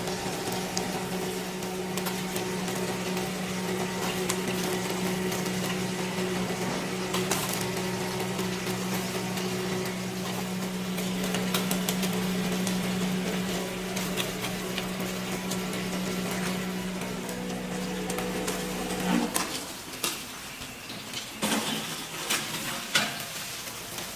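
Commercial gas direct-fire grilling machine running with a steady hum, which cuts off about 19 seconds in, followed by a few sharp knocks and clinks.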